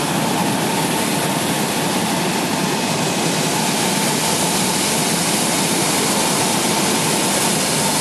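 Air-bubble vegetable washing machine running: water churning and bubbling hard in its stainless-steel tank, driven by its air supply, a steady rushing noise with a faint steady whine in it.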